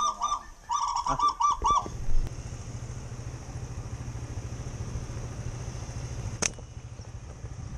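Geese honking in a quick run of calls for the first two seconds. Then a small motorbike engine runs steadily, and one sharp snap about six and a half seconds in as a rubber-band slingshot is shot.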